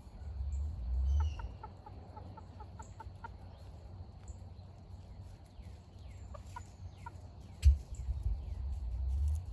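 A hen clucking, a quick run of about ten short clucks a second or so in, and a few more clucks later. Low rumble of wind or handling on the microphone comes and goes, with one sharp knock, the loudest sound, near the end.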